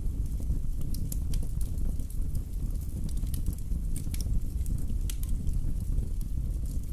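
Wood fire burning in a fireplace: a low steady rumble of flames with irregular sharp crackles and pops of the burning logs.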